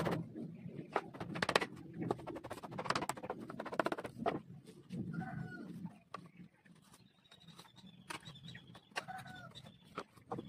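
Leather pieces being handled and pressed on a wooden box, making a run of clicks and light knocks in the first few seconds. A bird calls briefly twice in the background, around the middle and near the end.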